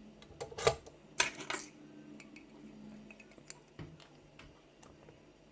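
Sharp metallic clicks and clanks from a lock cylinder being handled and clamped in a bench vise, loudest in two clusters in the first second and a half, then a few light ticks.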